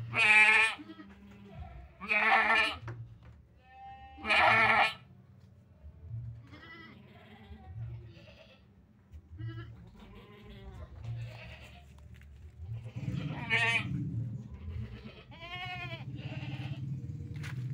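Goats bleating in loud, wavering calls: three strong bleats in the first five seconds, then fainter calls with a louder one a little past halfway. A low steady hum rises under them near the end.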